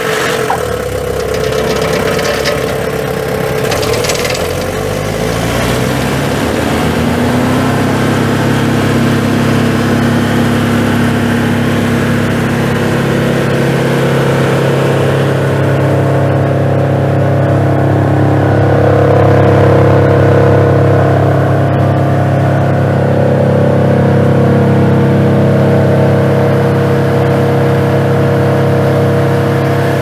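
2005 Vermeer BC1000XL wood chipper's Cummins 3.3-litre four-cylinder turbo diesel running loudly. Its pitch rises over the first several seconds as it speeds up, then it holds a steady high speed.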